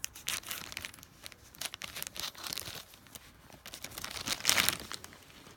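A plastic Happy Meal toy packaging bag being torn open and crinkled by hand, in quick crackly bursts, loudest about four and a half seconds in.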